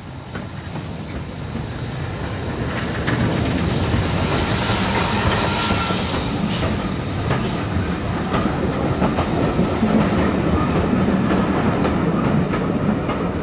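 Steam tank locomotive approaching and passing close by, growing louder over the first few seconds, with a hiss loudest about five seconds in as the engine goes by. The restored Victorian four- and six-wheeled coaches follow, their wheels clicking and clattering over the rail joints.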